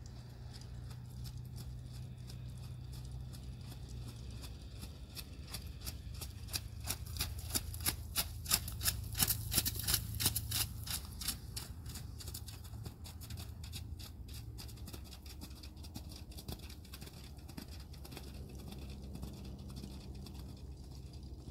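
Hoofbeats of a ridden horse trotting on icy, slushy ground: a quick, regular beat that grows louder as the horse passes close, then fades as it moves away. A steady low rumble sits underneath.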